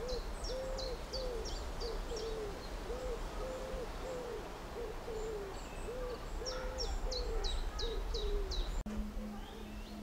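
A dove cooing in repeated phrases of short, soft low notes, about two a second, over two runs of a small songbird's quick high notes. Near the end the sound cuts out for an instant and a low steady hum follows.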